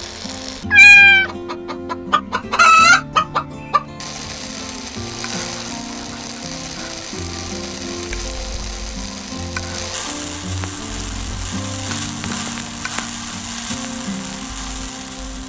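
A rooster crows about a second in, then clucks several times and gives a second, shorter call, loud over steady background music. After that the music carries on with a soft sizzle of the curry simmering in the pan.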